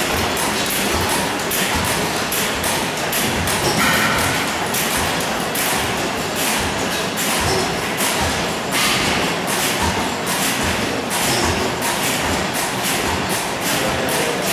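Several antique hit-and-miss stationary gas engines running together, making a dense, irregular stream of exhaust thumps and mechanical knocks.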